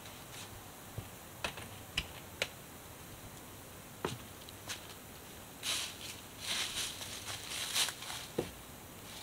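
Footsteps and rustling in dry fallen leaves, with scattered light clicks and knocks from gear being carried, and a single knock near the end as the gear is set down on a wooden picnic table.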